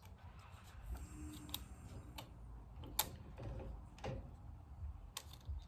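Scattered light clicks and taps of a cordless chainsaw's parts and a hand tool being handled during reassembly, the sharpest about three seconds in, over a low rumble.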